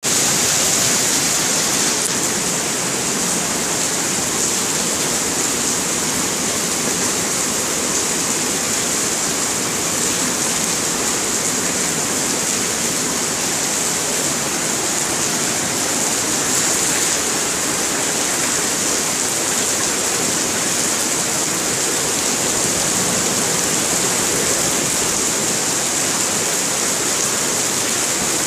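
Rain pouring steadily onto a paved courtyard: a dense, even hiss with no let-up.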